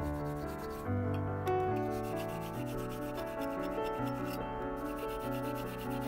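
A blue abrasive scouring pad scrubbing the metal case of a Zippo lighter, a continuous scratchy rubbing. It is heard over background music of held notes with a bass line changing every second or so.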